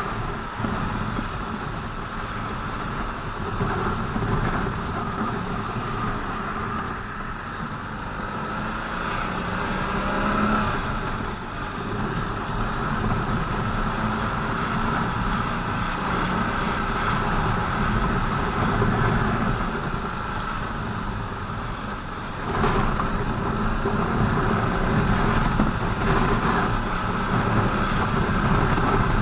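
BMW R 1200 GS boxer-twin motorcycle running on the road with road and traffic noise, the engine pitch rising briefly about ten seconds in and the whole sound getting louder about 22 seconds in.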